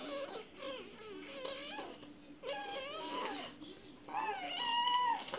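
A young child making silly high-pitched vocal sounds: several short squeals that slide up and down in pitch, the last one held steady for about a second near the end.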